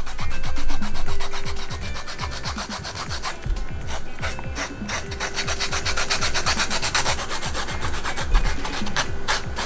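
Cut edge of a small leather strip being sanded with a hand-held abrasive sanding stick: quick, regular rasping strokes of the abrasive on the leather, smoothing the rough edge before it is burnished.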